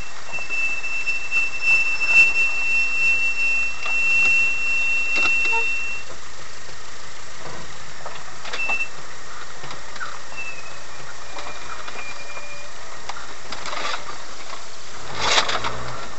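Inside an off-road 4x4's cabin on a rough track: a steady vehicle drone with scattered knocks and rattles. A thin high squeal is heard through the first several seconds, and a louder brief rush of noise comes near the end as the vehicle pitches up over a bump.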